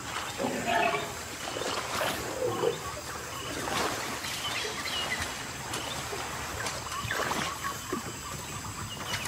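Thick wet mud and muddy water sloshing and squelching irregularly as a young Bornean elephant wades and slides through tidal riverbank mud at low tide, with a few short high chirps in the background.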